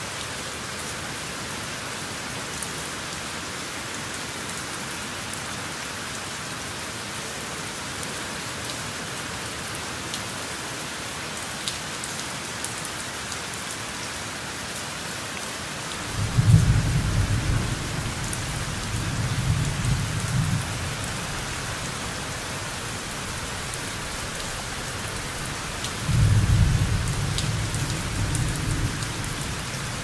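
Steady rain with scattered drops, and two low rolls of thunder: the first starts about halfway through and rumbles for about five seconds, the second comes near the end.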